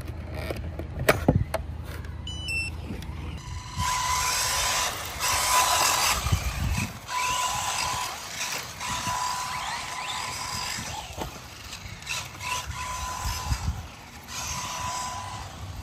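Electric RC car running: a mechanical whine with gear noise and a hiss that comes and goes as it drives. A short run of rising electronic beeps sounds about two seconds in.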